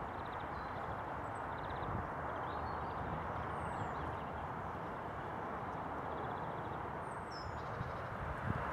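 Outdoor ambience: a steady rushing hiss with faint, scattered small-bird chirps and short trills.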